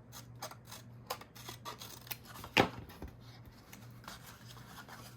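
Scissors snipping through paper, a string of short cuts, the loudest a little past halfway, as notches are cut off the corners of a folded paper piece.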